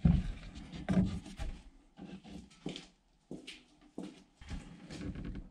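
Rubbing, scraping and a string of uneven knocks as interior roof trim is pulled out of a truck cab and handled.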